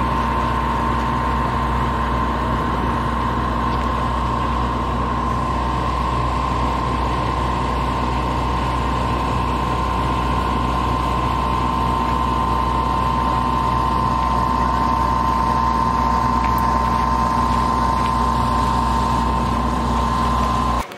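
Tour train running, heard from inside the passenger coach: a steady rumble and rush of noise with a steady high whine over it.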